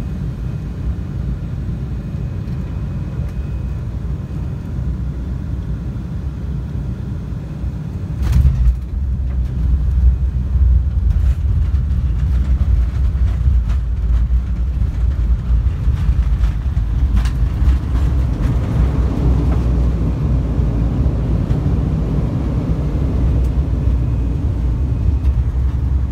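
Jet airliner taxiing after landing, heard from inside the cabin: a steady low rumble that steps up louder after a sharp knock about eight seconds in.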